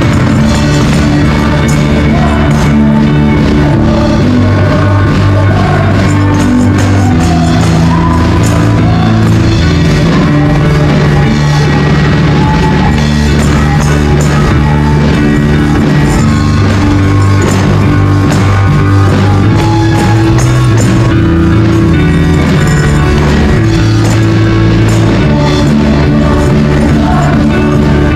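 Live praise band playing an upbeat rock-style worship song in the key of D, with singers on microphones and tambourines shaken along to the beat.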